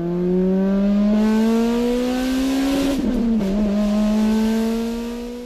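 Car engine accelerating, its pitch climbing steadily for about three seconds, then dropping sharply as at a gear change and holding nearly level. It fades in at the start and out near the end.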